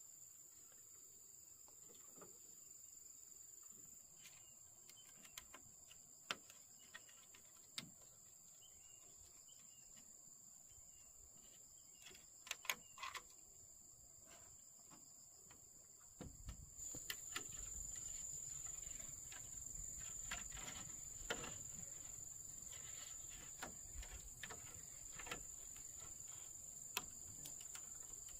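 A steady high-pitched drone of insects, with scattered sharp clicks and knocks; a bit past halfway the background grows louder and the knocks come more often.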